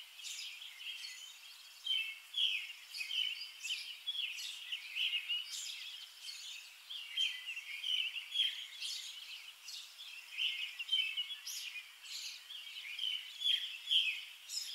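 Birds chirping: many short, high calls overlapping, several a second, with no low sounds beneath them.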